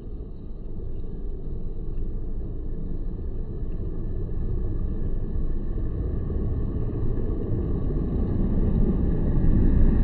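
Steady low rumble of outdoor background noise, slowly growing louder; no bird calls.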